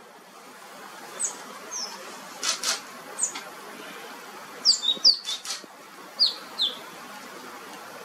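Small songbird giving short, sharp, downward-slurred chirps, a dozen or so in loose groups, the busiest cluster about five seconds in. Two brief sharp clicks come about two and a half seconds in.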